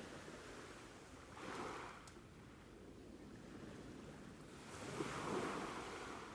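Ocean waves washing on a shore: a steady hiss of surf with two waves breaking, a small one about a second and a half in and a larger one about five seconds in.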